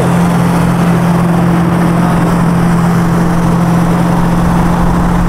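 Cars cruising side by side at a steady highway speed: a constant low engine drone with road and wind noise, no revving.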